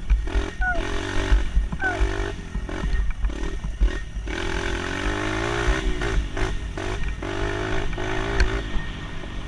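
Dirt bike engine running under way, revving up and easing off again and again with short drops in between, over low buffeting on the microphone. Two short chirps come about a second apart near the start.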